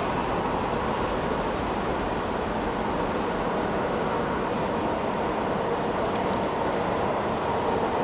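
Steady outdoor background noise of wind and distant traffic, with a faint constant hum and no distinct events.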